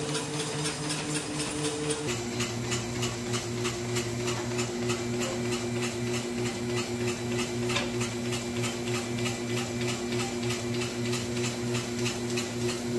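Friction feeder and conveyor of a direct-mail addressing and inkjet printing line running: a steady motor hum with a regular clicking about three to four times a second as mailpieces are fed through. The hum's pitch shifts about two seconds in.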